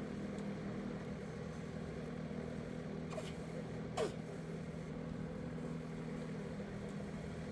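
Engine idling steadily, with a short sharp sound falling in pitch about four seconds in, as a long breaker bar is worked on the bolts.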